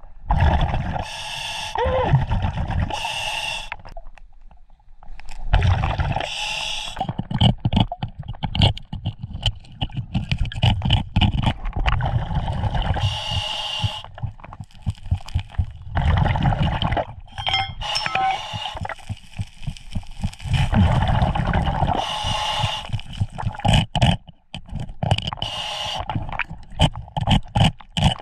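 Underwater scuba breathing, with several hissing inhalations from the regulator and rumbling bursts of exhaled bubbles. Under it, many sharp clicks and scrapes of stones and gravel against bedrock as a gloved hand digs out a crevice.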